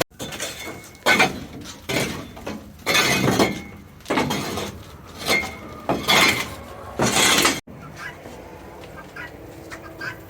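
Dried chicken droppings being scraped and chopped off a slatted coop floor, about seven rough strokes roughly a second apart. After a sudden cut, chickens cluck faintly.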